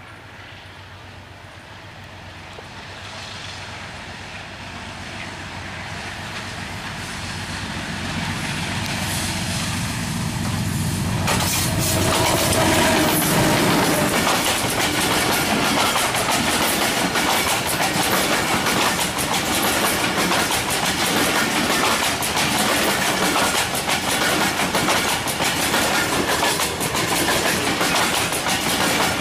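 Diesel-electric locomotive (Pakistan Railways PHA-20) hauling a passenger train, growing steadily louder as it approaches and then passing close by about eleven seconds in. Its coaches then roll past at speed, the wheels giving a steady run of rapid clicks over the rails.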